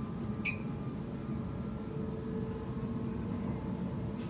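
Sydney Trains Waratah A-set electric train heard from inside a carriage while running: a steady rumble with faint steady tones through it, and a brief high chirp about half a second in.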